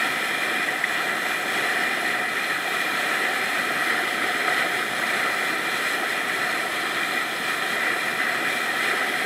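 Steady running noise of a motorboat under way: the engine drones evenly while the bow wave rushes and splashes along the hull.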